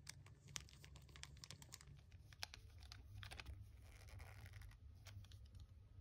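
Faint clicks, ticks and scraping of small metal parts: a small screwdriver and needle-nose pliers working tiny screws and nuts on a miniature metal model kit. Rapid irregular clicks through the first half, then a short scratchy rub about four seconds in.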